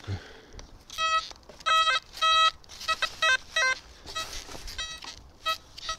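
Metal detector sounding a buried target: a run of short, steady beeps, some single and some in quick pairs, which grow fainter and shorter near the end. The target keeps reading about 88 on the detector.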